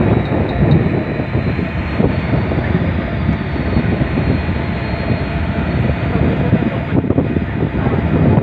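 Loud, steady, fluttering rumble of wind buffeting the microphone on a cargo ship's open deck, mixed with the ship's own machinery noise, with a faint high whine wavering above it.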